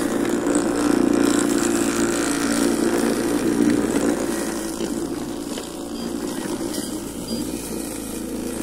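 Home-built electric robot mower running over grass: its 120 W 24 V e-scooter motor spins a brush-cutter blade with a steady hum. The hum is loudest in the first few seconds, then eases off a little.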